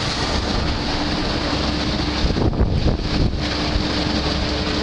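Asphalt paver and dump truck diesel engines running steadily together with a steady hum. Wind buffets the microphone briefly around the middle.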